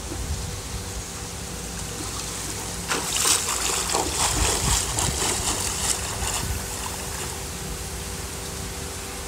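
Splashing of a swimmer's flutter kick while gliding on her back in a pool, starting about three seconds in and lasting about three seconds, over a steady background hiss and hum.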